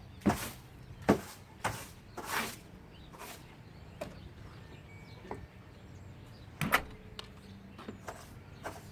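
Broom sweeping out debris: a run of short scratchy swishes, most of them in the first few seconds, with a sharp knock about a second in and another near seven seconds.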